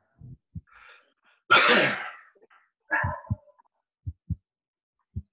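A person's loud, sudden sneeze about a second and a half in, then a shorter breathy exhale, with a few soft low double thumps around them.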